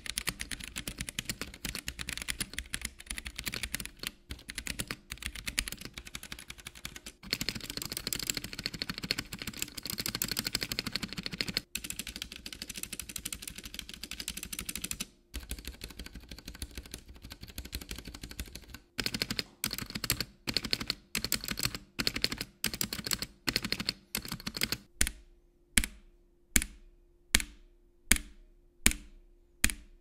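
Gateron Brown tactile switches on a GamaKay (Womier) K87 mechanical keyboard with a plastic plate, typed on fast and continuously at first. About two-thirds of the way in the typing slows to separate keystrokes, and near the end single keys are pressed one at a time, about every 0.7 seconds.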